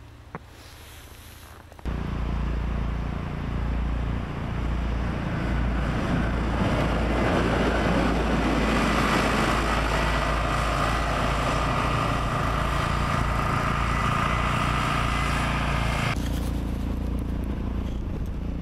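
Case wheel loader with a snow plow blade passing close by, its diesel engine running loud and steady, with a steady whine over it for a few seconds in the middle. The sound starts suddenly about two seconds in and drops off sharply near the end.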